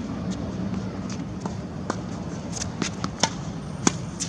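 Tennis ball struck by rackets and bouncing on a hard court during a baseline rally: a string of sharp pops, the loudest a little after three seconds and just before four seconds.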